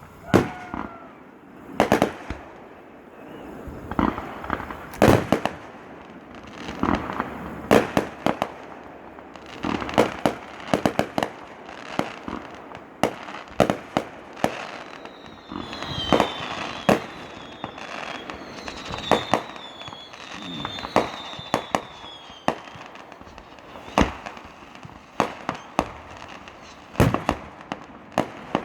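Fireworks display: aerial shells bursting with sharp bangs at irregular intervals, some in quick clusters. Midway through comes a run of short, falling whistles.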